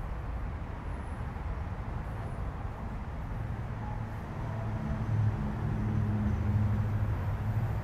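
A car engine running nearby, unseen: a low hum that swells about halfway in, is loudest near the end and then eases, over a steady low street rumble.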